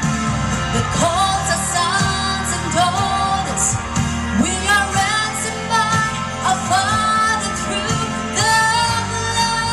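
A woman singing a gospel worship song into a microphone over instrumental accompaniment, her voice sliding up and down in drawn-out runs.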